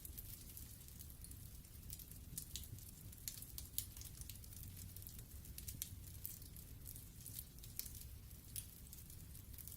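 Wood fire burning in a fireplace: logs crackling with frequent irregular sharp pops and snaps over a low steady rumble of the flames.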